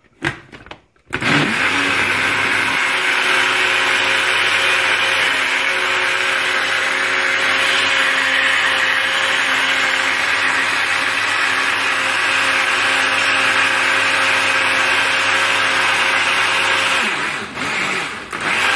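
Blend Xtract jug blender running steadily as it blends a fruit-and-milk smoothie, its motor starting about a second in after a click. It cuts out near the end and runs again briefly.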